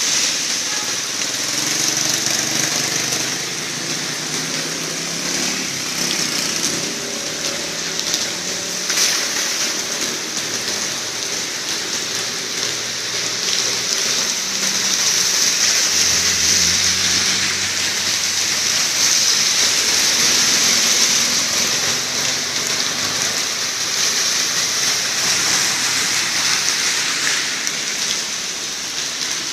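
Steady rain falling on a flooded street, a constant hiss. Underneath it, a motorcycle and then a car run through the standing water.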